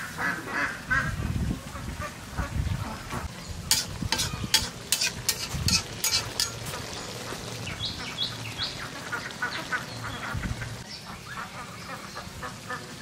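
Ducks quacking in quick runs, loudest near the start. About four seconds in comes a cluster of sharp clicks.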